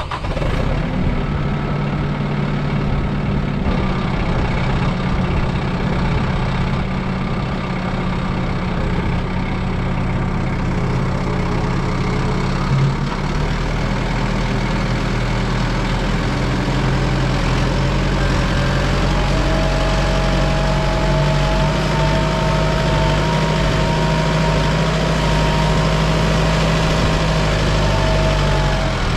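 Farm tractor engine running steadily while loading dirt with the front loader bucket, with a brief knock near the middle. A thin, high whine joins about two-thirds of the way through and holds to the end.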